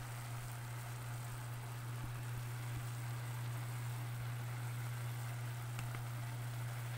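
Sautéed water spinach (kangkong) cooking in a pot on a gas stove, giving a steady hiss, with a steady low hum underneath.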